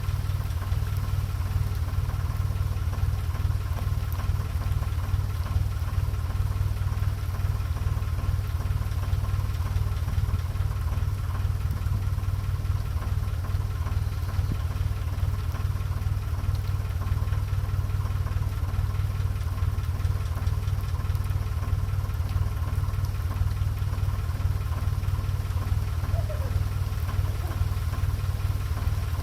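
Narrowboat engine running steadily under way, a constant low drone with a faint steady hum above it.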